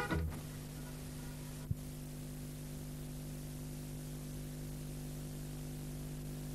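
Steady hiss and electrical hum of a blank recording, with one short faint click nearly two seconds in.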